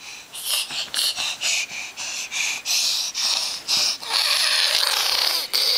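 A baby breathing hard and huffing close to the microphone: a quick run of short breathy puffs, then a longer unbroken hiss about four seconds in.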